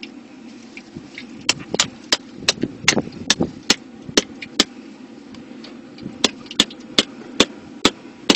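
Sharp knocks of a knife being struck through the hard bony shell of a boxfish to split it open, about three a second in two runs with a pause between them, over a steady low hum.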